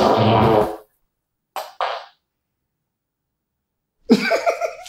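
A prank fart noise from a squeezed fart-sound toy, one loud blast of under a second, followed by a brief fainter blip about two seconds in. A child's voice comes in near the end.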